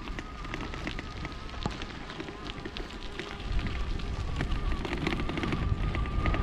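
Bicycle tyres rolling over a gravel forest track: a steady crackle of small crunches and grit, with a low rumble of wind on the microphone.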